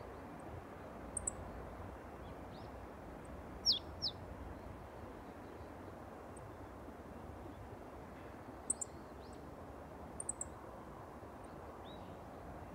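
Small songbird calls: a few short, very high double chips, and two quick, louder notes sliding downward about four seconds in, over a steady background noise.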